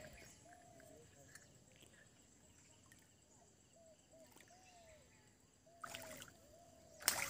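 Two short water splashes near the end, about a second apart, the second louder, as a hooked rohu swirls at the surface of the pond. Faint repeated short chirps run underneath.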